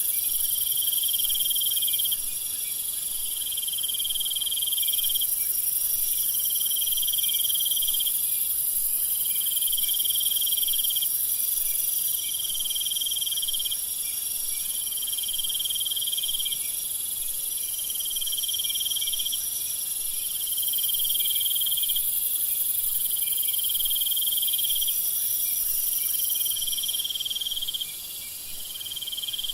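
Night insect chorus of crickets: a steady, very high-pitched shrill buzz with a lower cricket trill that repeats about every two seconds, other trills overlapping. The chorus dips briefly in loudness near the end.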